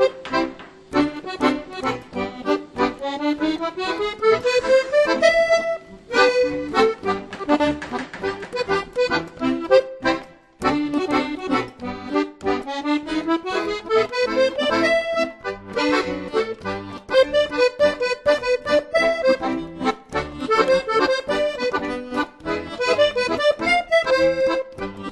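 Instrumental background music, a quick melody of short notes that twice climbs in a rising run.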